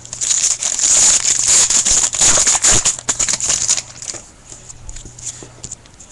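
Trading card pack wrapper torn open and crinkled by hand, loud and crackly for about three and a half seconds, then softer rustles and clicks as the cards are handled.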